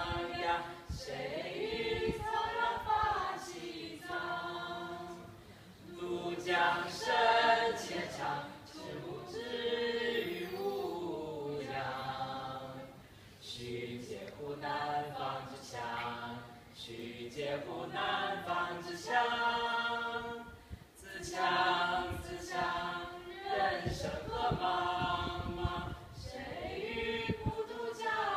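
A small group of young people singing together, in held phrases of a few seconds with short breaks between them.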